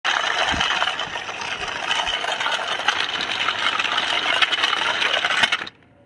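Toy remote-control cement mixer truck driving over gritty concrete: a steady crackling rattle of its plastic wheels on the grit, cutting off suddenly near the end.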